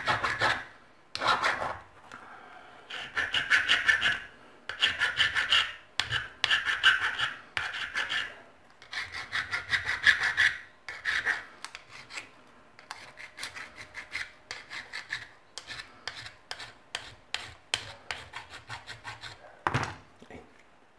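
Hand file rasping back and forth over a homemade rain sensor, in quick strokes of a few a second, in bursts with short pauses, evening out its surface. A single knock near the end.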